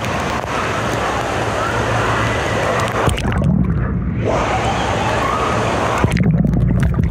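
Wave pool water sloshing and splashing, with a crowd's voices behind it. Twice, about three seconds in and again near the end, the microphone dips underwater and the sound turns to a muffled low rumble.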